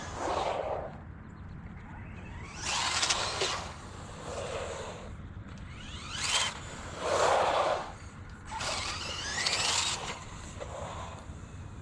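Traxxas Rustler VXL RC stadium truck's brushless electric motor whining up in several short bursts as the truck accelerates, with tyre noise on asphalt.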